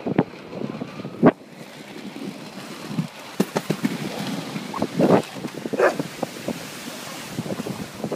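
Skate wheels rolling over paving stones, clattering irregularly at the joints, with a sharp knock about a second in. Wind rushes on the microphone throughout.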